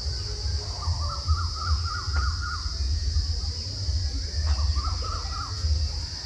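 A bird calling in two quick runs of short repeated notes, about a second in and again near the end, taken for a cuckoo. A steady high-pitched drone and a low rumble run underneath.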